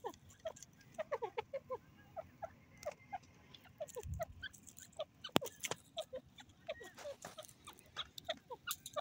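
Grey francolin giving soft, short chirping call notes, several a second, with a sharp click about five and a half seconds in.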